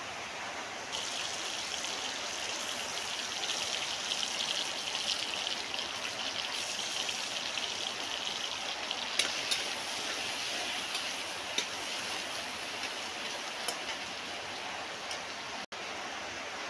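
Sliced onion and paste sizzling in hot oil in a steel kadhai, the sizzle starting about a second in as they go into the pan, with a few sharp spattering pops partway through.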